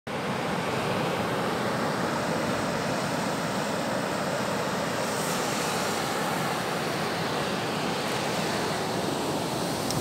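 Storm surf breaking and washing up a sandy beach: a steady roar of waves.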